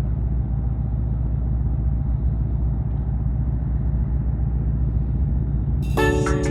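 A steady low rumble, heaviest in the bass. Music with clear pitched notes begins about six seconds in.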